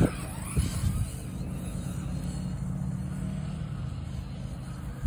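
Radio-controlled monster truck (Traxxas Hoss) landing a jump on turf: two thuds about half a second apart, then a steady low rumble as it drives away.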